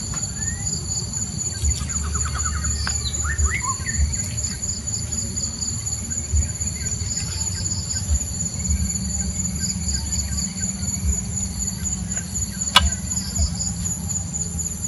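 Steady chorus of insects buzzing in several high pitches at once, with a few short bird chirps two to three seconds in and a single sharp click near the end, over a low steady rumble.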